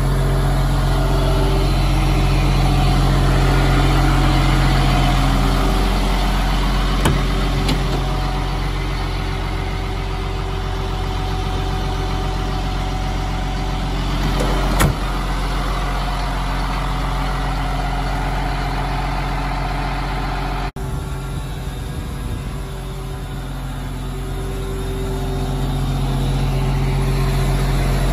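Cat 3126 turbocharged diesel of a Stewart & Stevenson M1084A1 6x6 cargo truck idling steadily. A short click comes about seven seconds in and a sharper knock about halfway through.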